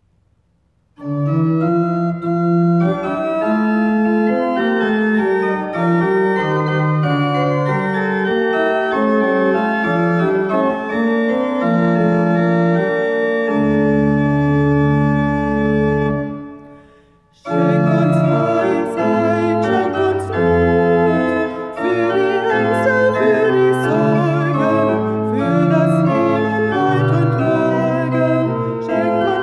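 Church pipe organ playing a hymn introduction in sustained chords, closing on a long low chord that fades out about halfway through. After a brief pause the organ starts again and a woman's voice sings the hymn with it.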